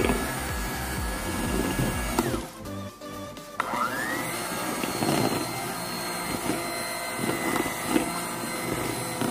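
Electric hand mixer beating cocoa sponge-cake batter in a stainless steel bowl, folding in the dry ingredients. The motor winds down and stops about two seconds in, then starts again a second later with a rising whine and runs steadily.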